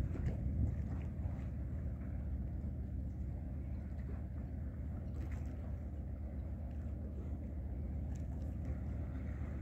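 Steady low rumble of a ship's engine, with an even hum underneath it.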